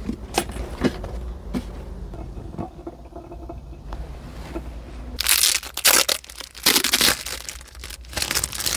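Packaging crinkling and crackling as it is handled and torn open. There are a few light clicks and knocks at first, then loud spells of crinkling from about five seconds in.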